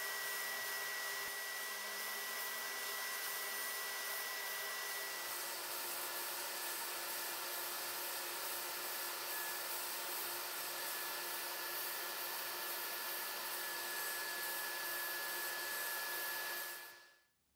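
Blast cabinet's sandblasting gun blasting rust off a steel meat cleaver: a continuous hiss of compressed air and abrasive with a thin steady whistle in it. It dies away shortly before the end.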